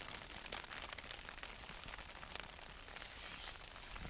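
Rain falling on a tent's fabric, heard from inside the tent, with many separate drops ticking on the fly over a steady hiss.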